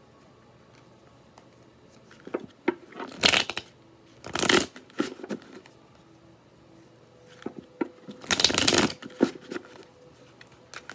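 A tarot deck being shuffled by hand: rustling card noise in two spells, starting about two seconds in and again about seven and a half seconds in, the longest rush of cards near eight and a half seconds.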